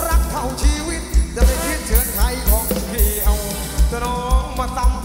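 Live Thai ramwong dance band playing through a loud PA system: a singer's melody over a heavy bass drum beat, about two beats a second.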